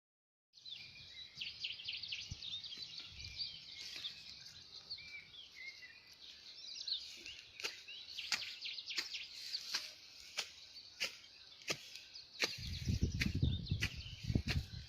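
Outdoor chorus of birds and insects, many high chirps overlapping, starting about half a second in. From about halfway, sharp clicks come at a steady pace of about one every two-thirds of a second, and a low rumble joins near the end.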